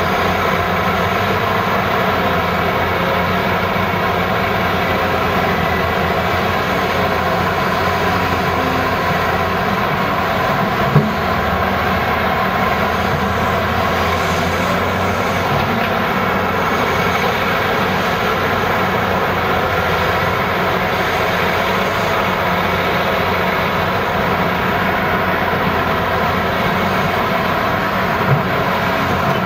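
CAT 375 hydraulic excavator's diesel engine running steadily under load while digging and loading a haul truck, with a sharp knock about 11 seconds in and another near the end as a bucketload of soil drops into the truck bed.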